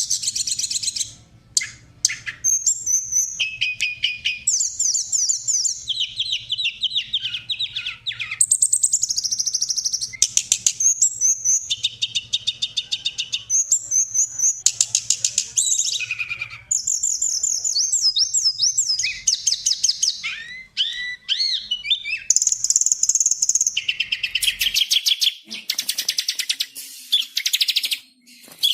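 Songbird song from a masteran recording: rapid high-pitched trills and repeated chirping phrases that follow one another with short gaps and abrupt changes of phrase.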